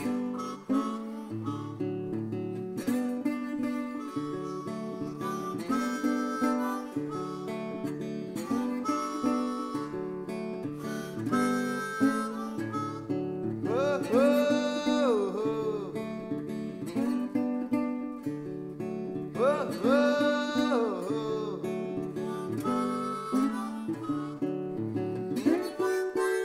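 Background music: strummed acoustic guitar with harmonica phrases that bend up and down in pitch, about halfway through and again a few seconds later.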